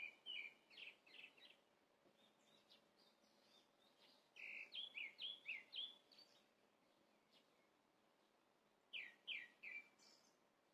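Faint bird song: three short runs of quick, high, down-slurred chirps, one near the start, one in the middle and one near the end.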